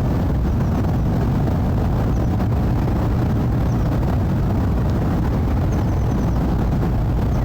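A jet airliner's engines making a steady, low rumble as it flies overhead after departure.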